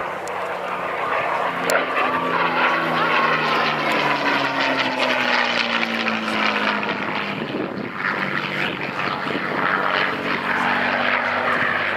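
P-51D Mustang's Packard Merlin V-12 engine running at display power as the fighter flies past, its pitch falling steadily for several seconds as it passes and then holding as it climbs away.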